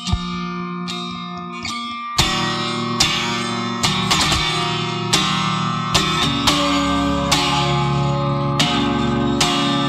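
Background music: guitar picking and strumming, growing fuller about two seconds in.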